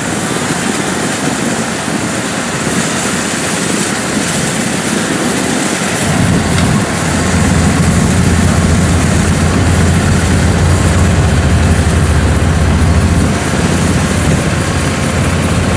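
Kubota DC-105X rice combine harvester's diesel engine running while it harvests. Its low hum grows louder about six seconds in and then holds steady.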